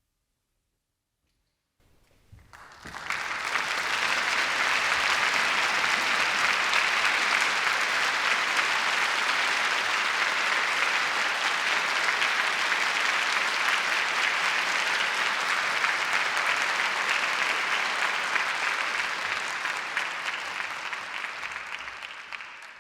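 Audience applauding: silence for about two seconds, then steady applause that fades out near the end.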